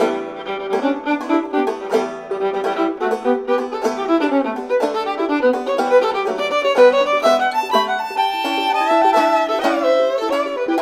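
Old-time fiddle and clawhammer banjo playing a tune together: sustained bowed fiddle notes over the banjo's steady plucked strokes.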